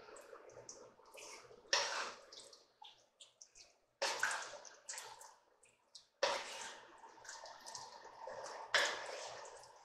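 Stew of pork chunks, onions and red chile sauce being stirred in an aluminum Dutch oven: wet squelching and sloshing, with four louder strokes a couple of seconds apart, each fading away.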